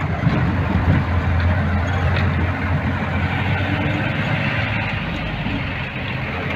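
4×4 jeep's engine running steadily under load while driving a rough dirt mountain track, heard from inside the cab as a constant low drone with road noise.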